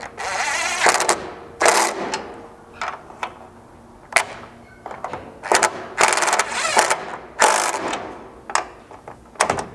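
Cordless drill-driver with a half-inch socket running in a string of short bursts, tightening the bolts that clamp the roof rack's front mounts together.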